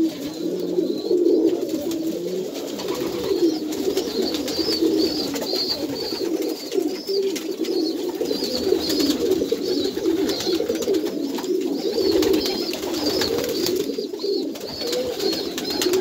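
Many domestic pigeons cooing at once in a loft, a continuous overlapping cooing, with faint high chirps running over it.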